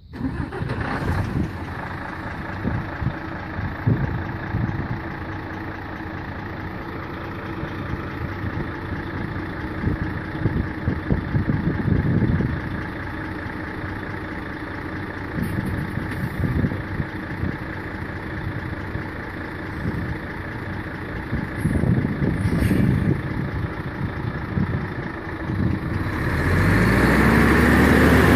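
Mercedes-Benz Actros 3340 truck tractor's V6 diesel engine starting up and idling steadily. Near the end it revs up with rising pitch and grows louder as the truck pulls away.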